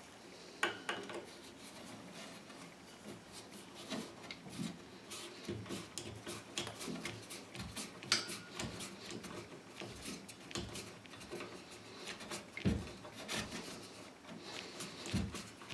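Hand screwdriver turning a tiny screw into a chrome towel-radiator wall bracket: a run of faint, irregular clicks and scrapes of metal on metal.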